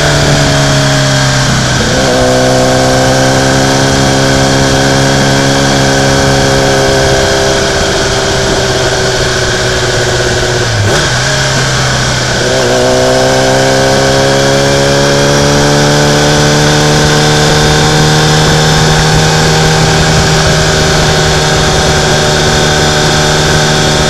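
Onboard engine of a track vehicle running under steady throttle, its pitch slowly sinking. It drops away briefly twice, just before two seconds and around eleven seconds in, then rises and holds steady. Wind and road noise rush over the camera microphone throughout.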